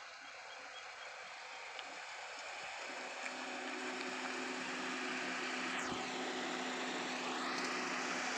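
Toyota Noah minivan driving slowly over brick paving toward the listener and pulling up, the tyre and engine noise growing louder as it nears. A steady engine hum comes in about three seconds in.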